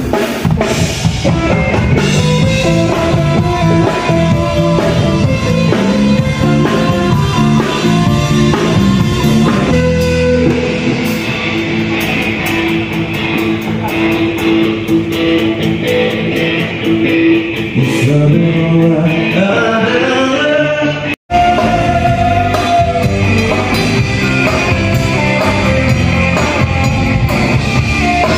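Live pop-rock band playing a song on stage during a sound check: electric guitars, bass, a drum kit and keyboard, with a singer's voice over them. The music breaks off for an instant about two-thirds of the way through, then carries on.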